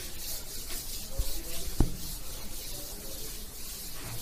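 Blackboard duster wiping chalk off a chalkboard in repeated scrubbing strokes, with two short dull knocks about a second and two seconds in.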